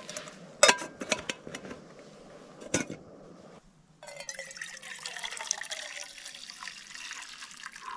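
Brewed coffee poured from a small cup into a metal camp pot: a steady pouring splash from about four seconds in. Before it come a few sharp clicks of the cookware being handled.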